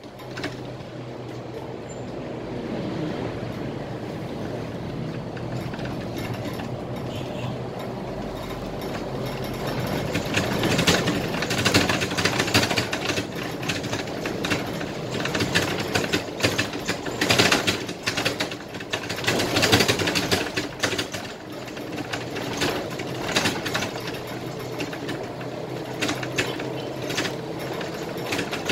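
Scania K320IA city bus heard from the driver's cab while driving, with its engine running steadily. From about ten seconds in the body and cab fittings rattle and clatter as it rolls along.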